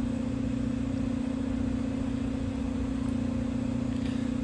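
A car running with a steady mechanical hum and a constant droning tone over a low rumble.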